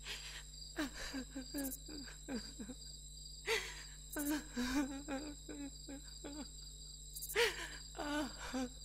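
Night insects, crickets, trilling in a steady high drone, with short low wavering calls coming and going over it.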